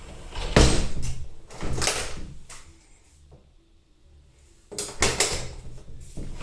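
Sharp knocks and scrapes from a wooden pocket door being handled: one about half a second in, another near two seconds, and a cluster around five seconds, with a quiet pause between.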